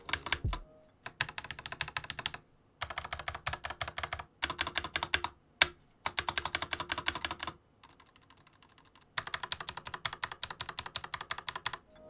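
Keyboard stabilizers under a spacebar and other long keycaps being pressed rapidly over and over: fast runs of plastic key clacks in several bursts with short pauses between them.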